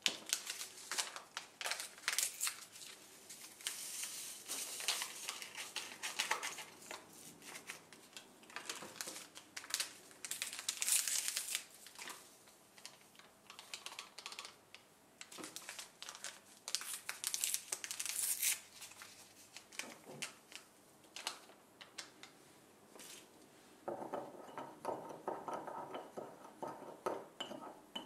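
Paper powder sachets crinkling and rustling as they are handled, torn open and shaken out into a china mug. In the last few seconds a teaspoon stirs and scrapes the powder in the mug.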